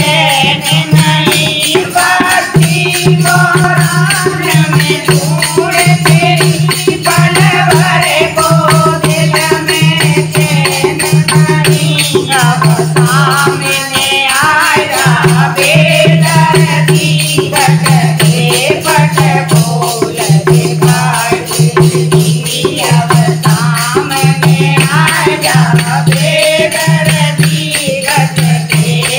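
Group of women singing a devotional bhajan in unison, to a steady fast jingling of metal discs shaken on a hand-held wooden frame.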